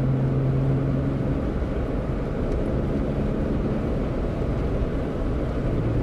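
Wind and road noise inside the cabin of a Jeep Wrangler JKU with a Smittybilt replacement soft top, cruising at about 50 mph, over a steady engine hum that drops away about a second and a half in. Some noise, but not loud for a soft top.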